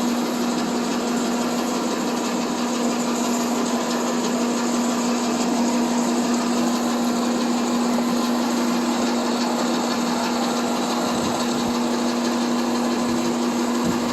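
WoodMizer LT40 sawmill and its sawdust conveyor running steadily: a constant mechanical hum with one strong low tone and no change in pace.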